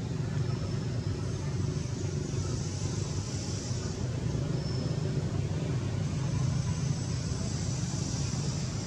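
Steady low rumble with an even hiss: constant outdoor background noise with no distinct events.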